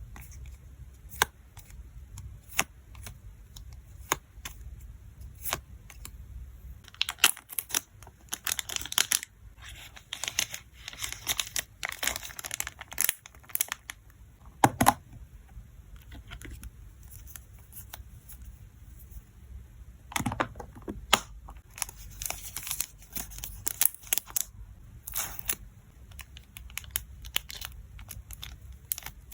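Photocards being packed by hand: packaging crinkles and rustles in several bursts lasting a few seconds each, between scattered light clicks and taps.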